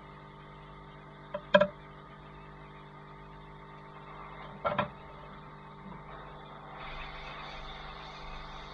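Hot air rework gun hums steadily, with two sharp knocks from the phone being handled, the first the louder. About seven seconds in, a steady hiss of blown air rises as the hot air nozzle is aimed at the phone to soften the touch screen's adhesive.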